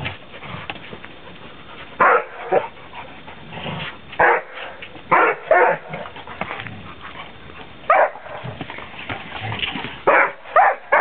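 Dogs barking in short, sharp barks, about eight scattered over several seconds, during rough play over a ball.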